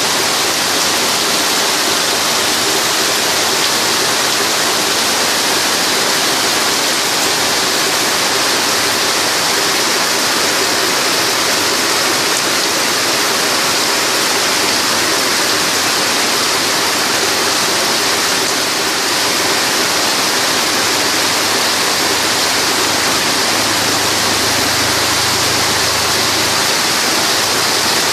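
Heavy rain pouring down, a loud, steady, dense hiss.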